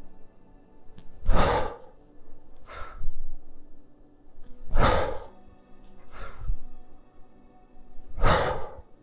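A man breathing forcefully in rhythm with kettlebell one-arm jerk reps: a loud, sharp exhale about every three and a half seconds, each followed by a shorter, softer breath. Soft background music underneath.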